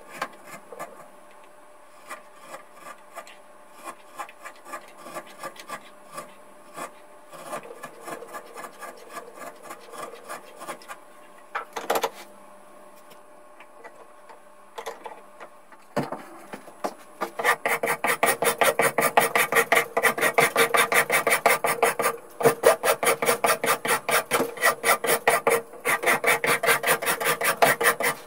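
A knife paring a small block of hardwood with light, scattered scraping cuts. From just past halfway, a coarse hand rasp files a round wooden part in rapid, even strokes, about four a second and much louder.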